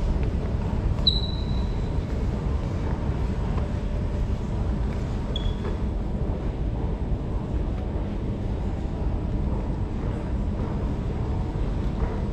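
Steady low rumble of an underground metro station platform, with two short high beeps, one about a second in and one about five seconds in.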